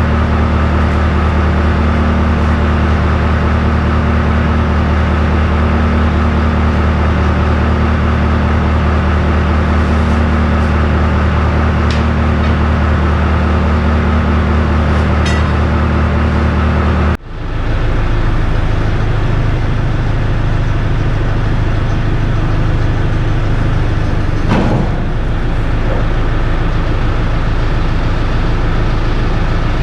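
A heavy diesel engine running steadily. About 17 seconds in the sound cuts off abruptly and resumes as a steady engine at a different, lower pitch.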